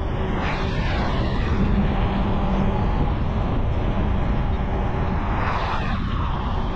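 Steady road noise from a vehicle travelling on a highway: a continuous low rumble and rush, swelling briefly about half a second in and again near the end as traffic passes.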